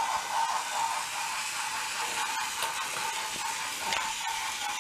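Battery-powered toy train's small electric motor and gearbox whirring steadily, with a few sharp clicks.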